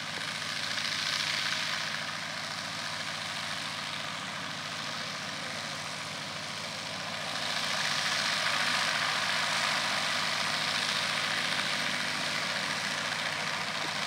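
Distant World War II-era propeller airplane's engine running steadily on the ground while the plane waits lined up on a grass runway; the sound grows louder about seven and a half seconds in.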